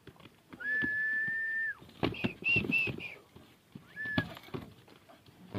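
High whistled notes: one steady note held about a second, then three short higher notes, and a brief note a little after four seconds in, with faint scattered knocks and scuffs in between.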